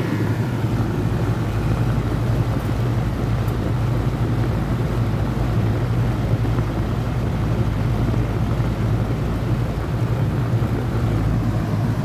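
Residential R-22 air-conditioning condensing unit running: the compressor and condenser fan give a steady low hum over a rush of air. The compressor has started and is running, a sign that the compressor itself is sound and its trouble was the burnt terminal wiring.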